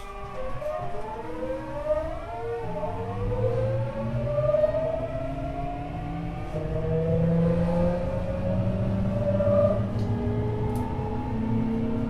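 Tokyu 9000 series' Hitachi GTO-VVVF inverter and traction motors whining as the train accelerates, several tones climbing steadily in pitch over the running noise of the car.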